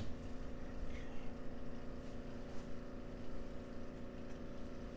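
A steady mechanical hum with an even buzzing tone over a low rumble, holding level throughout, with no distinct knocks or cracks.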